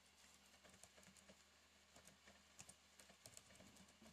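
Faint, irregular key clicks of a laptop keyboard as a password is typed.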